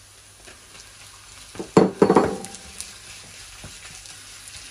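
Minced beef tipped from a ceramic bowl into a hot frying pan of softened onions, with a loud knock of the bowl on the pan and a burst of sizzling about two seconds in. A low sizzle follows as the meat is stirred with a wooden spoon.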